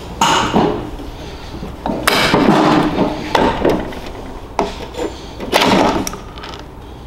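Steel gears and shift parts of an opened Polaris transmission clinking and scraping against the case as the gear set is worked up and out, with locking pliers holding the shift lever. The sound comes in four or five separate bursts of metal clatter.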